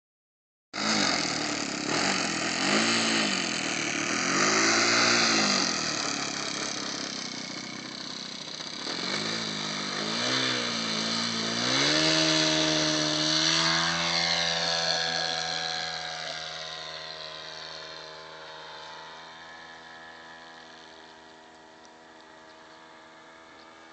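Radio-controlled Corsair model airplane's motor starting up about a second in and revving up and down several times, then running up to full throttle for the takeoff about 12 seconds in. It holds a steady high pitch and fades steadily as the plane climbs away.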